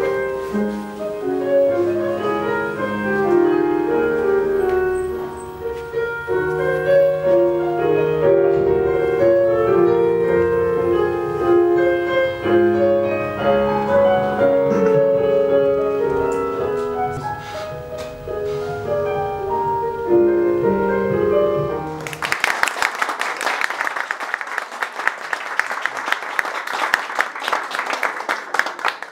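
Piano playing a classical piece on a Roland digital piano, the notes stopping about 22 seconds in, after which a small audience applauds.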